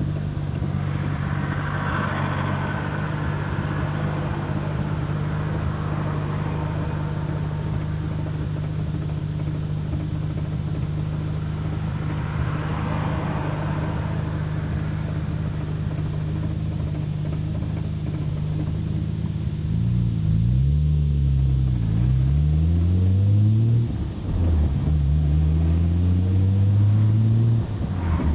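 Nissan Skyline GT-R R34's RB26DETT straight-six running steadily, then revving up through two gear changes about 20 and 24 seconds in, heard from the cabin with the windows open. Under it the stock Getrag six-speed gearbox rattles abnormally loudly. An oil change has not cured the rattle, and the owner fears the gearbox needs an overhaul.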